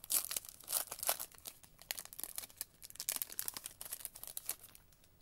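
Foil wrapper of a 2023 Prizm football card pack being torn open and crinkled by hand: a dense run of crackles that thins out and stops shortly before the end.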